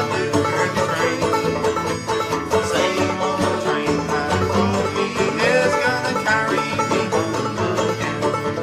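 Banjo picking a bluegrass tune without singing, a steady stream of quick plucked notes.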